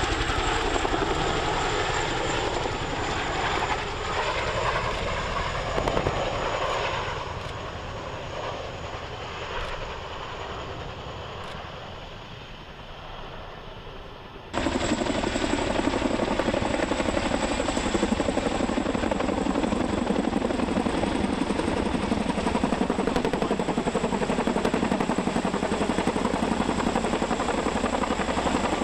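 Boeing CH-47 Chinook tandem-rotor helicopter in flight, its sound fading as it flies away; about halfway through it cuts abruptly to the loud, steady rotor noise of the Chinook hovering close by.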